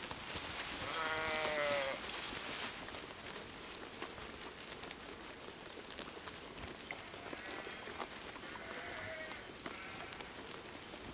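Sheep bleating: one clear bleat about a second in, then several fainter bleats near the end, with scattered faint clicks between them.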